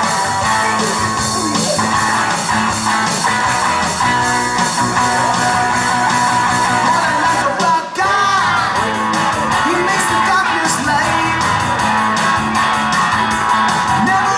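Upbeat song with singing over guitar and a steady beat, with a brief drop just before the middle.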